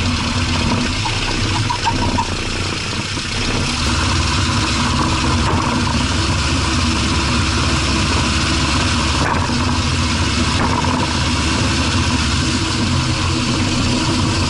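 A car driving, heard from inside the front wheel well: steady road, tyre and engine noise with a few sudden knocks from the front suspension. The spring on the universal coilover sleeve is in total coil bind, which causes the hard knock.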